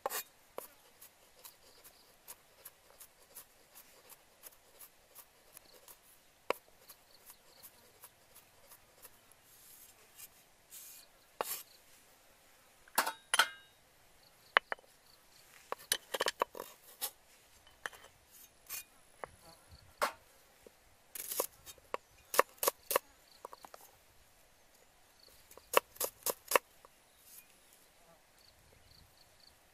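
Light ticks and scattered sharp clicks and taps of a knife and hands working garlic and shallots on a wooden chopping block, with louder clusters of clicks in the second half.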